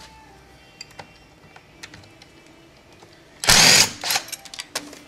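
A power tool runs in one short burst of about half a second, three and a half seconds in, amid light clicks and clinks of metal parts while the automatic transmission is taken apart.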